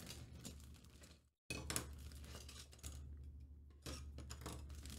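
Clear plastic bag crinkling and rustling as grey 3D-printed plastic kit parts are taken out and laid on a cutting mat, with small clicks and knocks of the parts. The sound cuts out briefly about a second and a half in.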